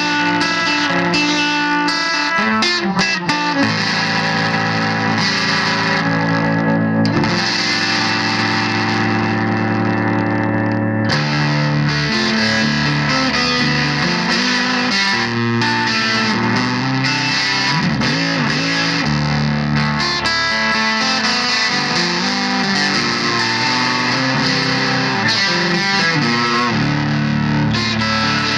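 Electric guitar played through a Volition Amps Vintage Fuzz pedal, a distorted fuzz tone. It moves between held notes left to ring for a few seconds and shorter moving lines.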